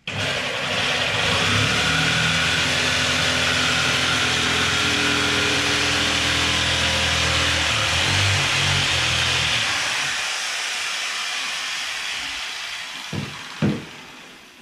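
Electric jigsaw cutting through a sheet of plywood: the motor starts suddenly and runs steadily under load for about ten seconds, then fades as the cut finishes. Two sharp knocks near the end as the cut-off piece comes free.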